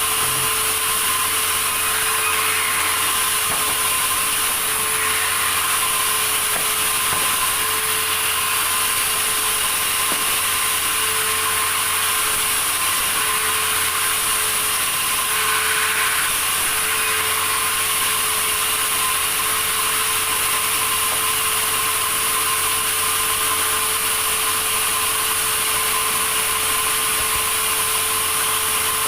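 Sawmill saw and its motor running steadily, an even mechanical noise with a constant hum and no break.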